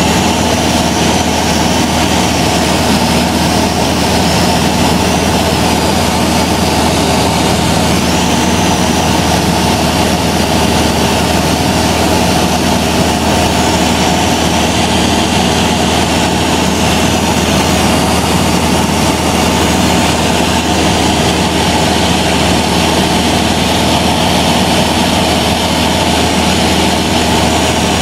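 Cessna 172's piston engine and propeller running steadily in flight, heard inside the cabin.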